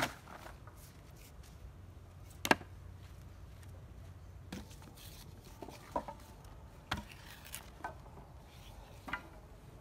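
Sharp, separate wooden knocks, about seven of them at uneven intervals and loudest about two and a half seconds in, as cut wooden poles are handled and set down against one another on bare ground.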